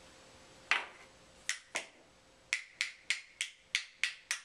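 A run of sharp clicks from small plastic Play-Doh toys being tapped and clicked: a single click, a pair, then a steady run of about three a second.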